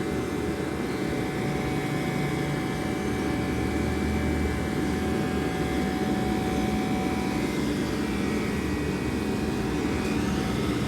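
Hydraulic elevator's dry-type power unit running: electric motor and oil pump making a steady hum with a constant whine.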